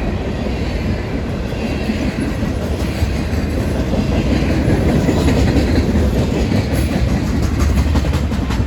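A freight train's cars rolling past with steady wheel-on-rail noise.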